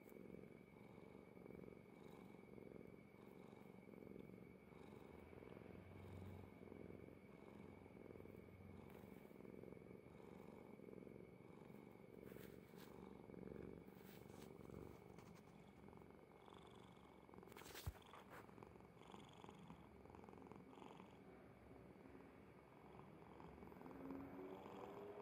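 Orange tabby kitten purring faintly and rhythmically as it dozes, with one sharp click about eighteen seconds in.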